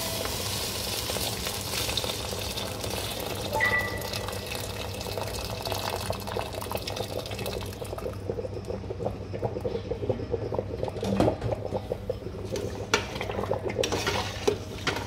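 Heated water poured from a jug into a steel pot of ghee-toasted biryani rice, splashing as the pot fills. In the second half, sharp clicks and scrapes of a slotted spoon stirring the rice against the steel pot.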